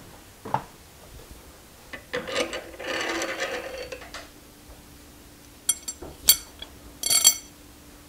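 Metal scraping and clinking as the milling machine's down-feed drive pulley is worked loose and lifted off the head casting. There is a short knock, then about two seconds of ringing metal-on-metal scraping, and then several sharp clinks near the end.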